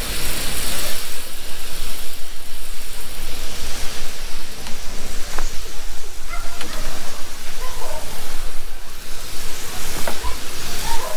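Pesticide pressure sprayer hissing steadily as it sprays, over a constant low rumble.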